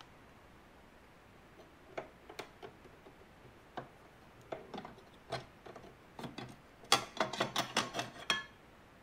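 Small aluminium top panel of a Beogram 4002 turntable being lifted at its outer edge and slid out of place by hand: scattered light clicks and taps, then a quick run of clicking and scraping near the end as the panel comes free.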